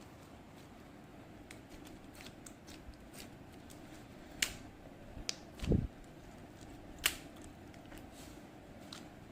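Hands squishing and pressing a green jelly slime: scattered small sticky clicks and pops, with one soft low thud a little past the middle, over a faint steady hum.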